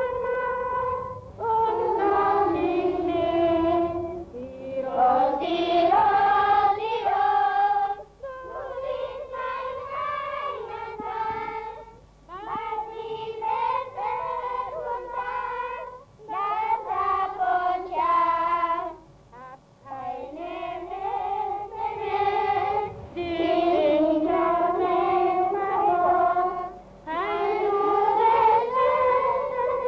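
A children's choir of girls singing a song, in phrases of a few seconds with short pauses for breath between them.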